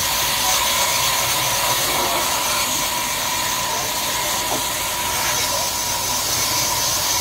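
Band sawmill running steadily, its blade giving a constant high whine over an even hiss as the mill works through a jackfruit log.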